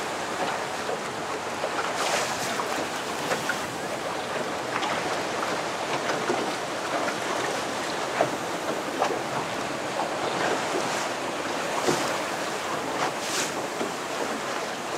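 Choppy sea water sloshing and splashing around a small open boat, a steady wash with a few sharper slaps and splashes scattered through it.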